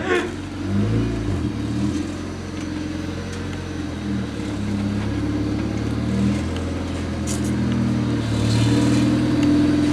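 Car engine running at low revs, a steady low drone that grows a little louder near the end.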